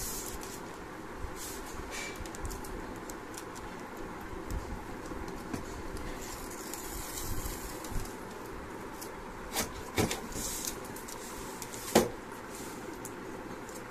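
Steady background noise with paper sheets being handled, a soft rustle, and a few sharp clicks or knocks, the loudest near the end.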